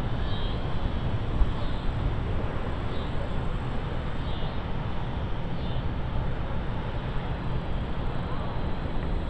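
Wind buffeting the microphone, a steady low rumbling noise. A faint short high chirp repeats about every second and a half through the first half.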